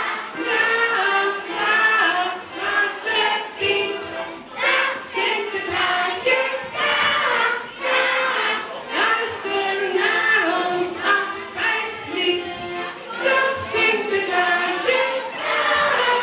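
A crowd of children singing a Sinterklaas song together, with music.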